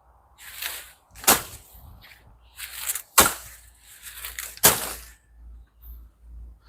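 A hand blade chopping through weeds and brush: three sharp strikes about a second and a half apart, each preceded by a swishing rustle of vegetation.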